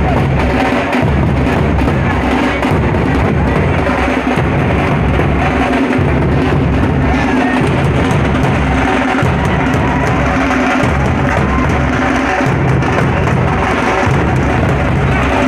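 A group of large dhol barrel drums beaten with sticks: a loud, continuous rhythm of deep beats with sharp stick strikes, the pattern repeating every couple of seconds.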